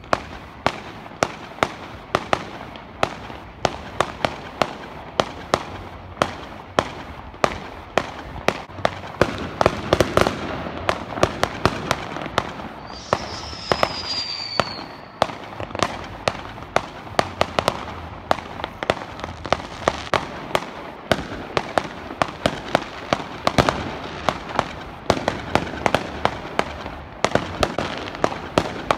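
Fireworks going off: a rapid, irregular run of bangs and crackling bursts, several a second. About 13 seconds in, a high whistle sounds for a couple of seconds, dropping slightly in pitch.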